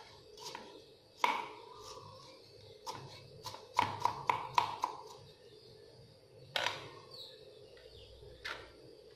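Kitchen knife striking a wooden chopping board as fresh ginger is sliced into thin strips. The knocks are sharp and uneven, each with a short ring, and a quick run of five comes about four seconds in.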